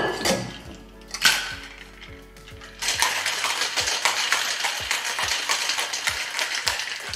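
Boston shaker, its steel tin seated onto the mixing glass with two sharp clinks, then ice cubes rattling hard and fast inside as the cocktail is shaken, starting about three seconds in.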